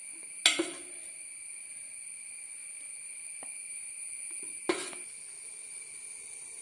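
Two sharp metallic clanks from the steel idli plate and utensils as batter is poured and the plate is set into the steamer, one about half a second in and another near five seconds, each with a brief ring. A steady high-pitched whine runs underneath.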